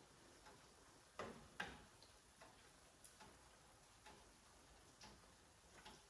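Near silence, with a few faint, sparse ticks and taps, the clearest two about a second and a half in.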